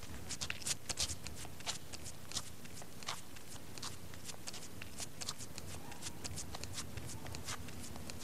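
Light, irregular clicks and taps, a few a second and sharpest in the first second or so: a cartoon sound effect of creeping footsteps, over a steady tape hiss.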